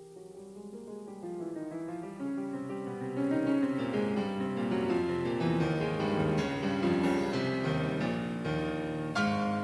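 Piano music that starts softly and grows louder over the first few seconds, then carries on at a steady level with many overlapping notes.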